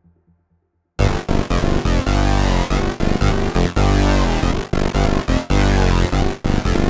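Roland SH-201 synthesizer preset demo: a faint fading note dies away, and about a second in a loud, dense electronic synth sound starts, rhythmically chopped into short stuttering pulses.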